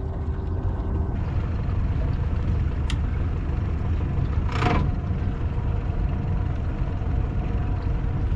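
Honda 150 four-stroke outboard motor running steadily, a low rumble mixed with wind and water noise. A short rushing splash about halfway through.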